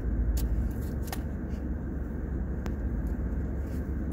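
Steady low rumble inside a car, with a few light clicks and rustles, about four in all, from a paper fast-food box and bag being handled.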